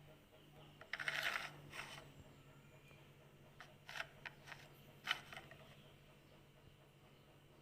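Faint handling sounds of kitchen items: a short scrape or rustle about a second in, then a few light, sharp clicks around four to five seconds in, over a faint steady hum.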